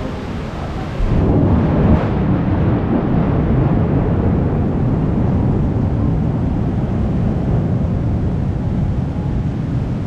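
Wind buffeting the microphone: a low, rough rumble that jumps louder about a second in and then holds steady.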